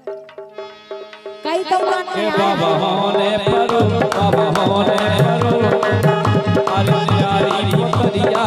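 Harmonium holding a steady chord, joined about a second and a half in by hand drums and sharp percussion strikes playing a fast, even beat: a Bundeli rai folk band striking up.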